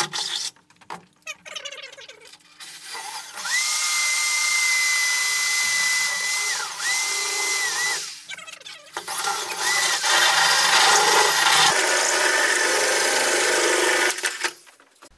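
Corded electric drill with a hole saw cutting through a foam insulation panel and the corrugated steel wall of a shipping container. The motor whines in long runs that stop and restart: from about 3 s to 7 s, briefly near 8 s, and again from about 9.5 s to 14 s. Short handling knocks come before the first run.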